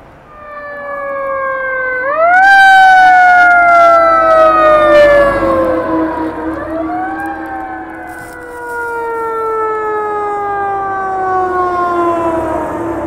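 Fire engine siren passing close. Its pitch jumps up quickly about two seconds in, then slides slowly down for several seconds, rises again around six seconds in and slowly falls again. A steady lower tone runs underneath.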